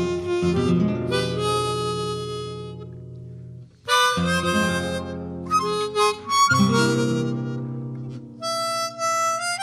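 Background music: a harmonica melody over acoustic guitar chords.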